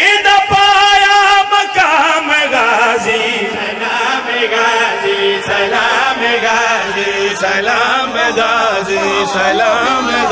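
Men chanting a devotional qaseeda in Punjabi through microphones. The lead reciter holds one long, wavering high note for about two seconds, then the chant carries on in a flowing melody with other men's voices joining in.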